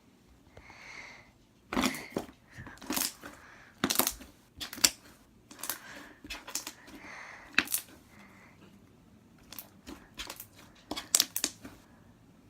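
Slime being pressed and handled: an irregular string of sharp sticky clicks and taps, with softer squishing sounds between them.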